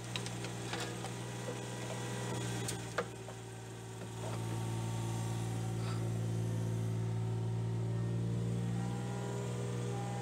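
Mini excavator's diesel engine running steadily while its hydraulics drive the rotor of a bucket separator screening turf and soil, with a few sharp knocks of clods and stones in the bucket during the first three seconds. About four seconds in the engine grows louder and stays there, working under more load.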